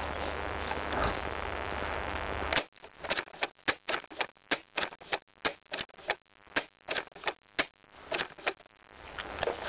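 Rustling, then a run of sharp clicks starting about two and a half seconds in, roughly four a second for some six seconds, before the rustling slowly returns.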